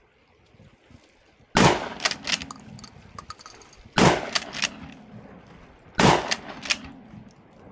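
Mossberg 590 pump-action shotgun fired three times with light target loads, about two seconds apart. Each shot is followed by a few quicker, sharp clicks.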